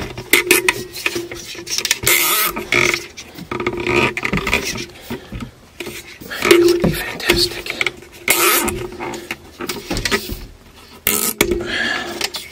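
A heavy-duty cable tie being worked and pulled tight around the hanging metal housing of a 10-inch inline duct fan: a series of short zipping and clattering handling noises, with a low hum that comes and goes.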